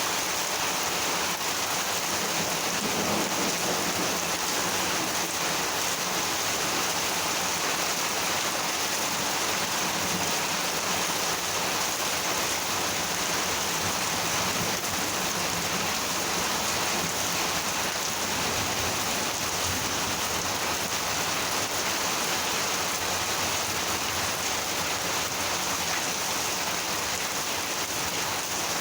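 Monsoon rain falling steadily, an even hiss of drops striking surfaces with no let-up.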